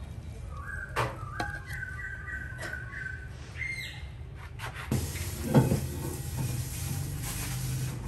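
A metal ladle clinks and knocks against a ceramic plate a few times while sauce is spooned over the dish; the sharpest knock comes about five and a half seconds in. A low steady hum runs underneath. In the first three seconds there is a run of short, high whistled notes, then a quick falling whistle.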